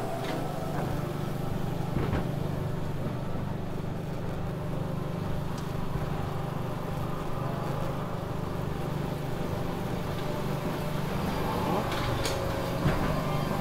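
Ghost train car rolling along its rail with a steady low hum from its drive, and a few short clicks and knocks from the track.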